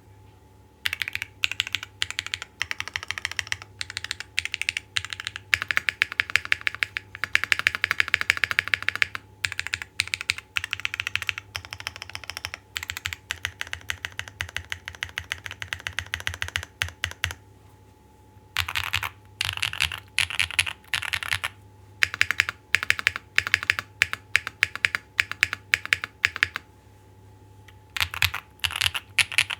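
Typing on a custom Neo65 65% mechanical keyboard with stock MDD Princess switches on a POM plate, foam-dampened, with lubed TX stabilisers and GMK keycaps: fast runs of keystrokes, broken by short pauses.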